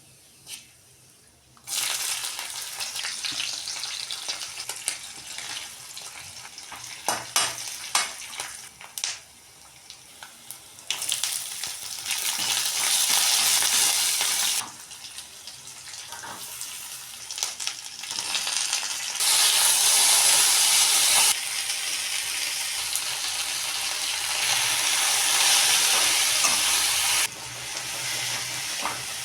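Food frying in a pan, the oil sizzling steadily while a spatula stirs, with a few clicks against the pan. The sizzle starts about two seconds in and changes loudness abruptly several times.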